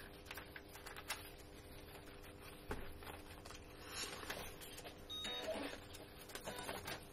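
Faint clicks and taps of desk equipment over a low, steady electrical hum.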